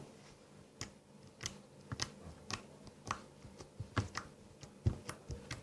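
Slime being taken out and handled in the hands, giving faint, irregular sticky clicks and small pops, about two a second.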